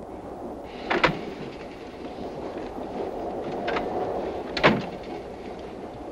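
Steady running noise of a train carriage, with a sharp clack about a second in and another a few seconds later as a compartment's sliding door is opened and shut.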